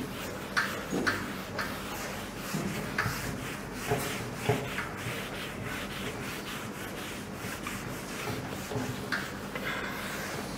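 Hand-held whiteboard eraser rubbed across a whiteboard in short, irregular wiping strokes.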